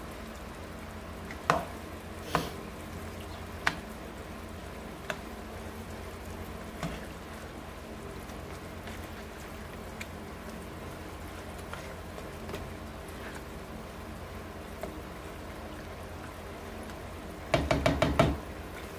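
Raw chicken pieces sizzling as they sauté in a stainless steel frying pan, cooking until no longer bloody or pink. A silicone spatula stirring them knocks against the pan every second or two early on, and a louder clatter comes near the end.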